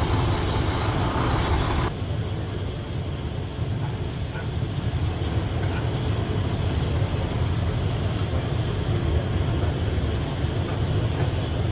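A motor vehicle's engine running steadily with a low rumble. Extra hiss-like noise over it stops abruptly about two seconds in.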